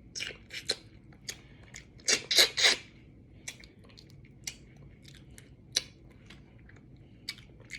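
Close-up mukbang eating sounds: crunching bites and chewing of crab kickers, with scattered sharp clicks and a few louder crunches about two seconds in.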